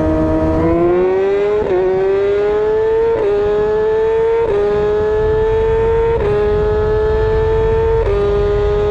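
Sport motorcycle engine heard from on board, accelerating hard through the gears. The revs climb and dip briefly at five quick upshifts, over a low wind rumble.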